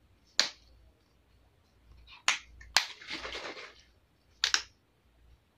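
A plastic bottle of micellar cleansing water being handled: four sharp clicks, with a short rushing splash of liquid a little under three seconds in.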